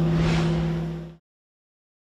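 Bosingak's large bronze bell humming on after a strike, two steady low tones with a brief rush of noise about a quarter second in. The sound cuts off abruptly a little over a second in.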